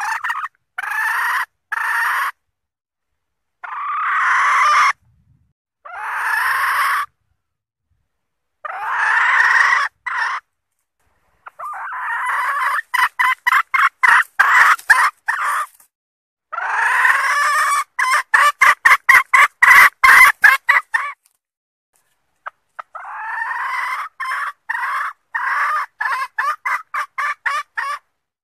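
Junglefowl hen giving the "ngekek" mating-solicitation cackle, the call used to lure wild junglefowl. Drawn-out calls of about a second alternate with runs of rapid short notes, about four a second, with dead silence between the bursts.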